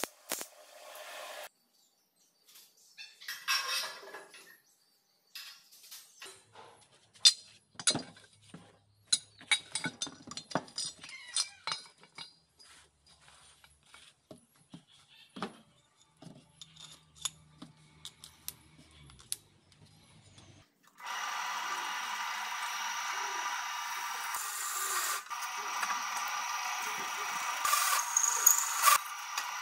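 Electric welding crackling briefly at the start, then scattered clinks and knocks of square steel tubing being handled. About 21 s in, a bench drill press starts and runs steadily, its bit cutting through the steel tube with louder spikes near the end.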